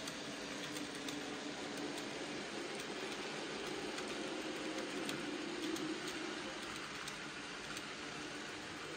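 Model railway train running along the track: a steady rolling rumble of the locomotive and coaches on the rails, with scattered light clicks, growing a little louder about five to six seconds in as the coaches pass.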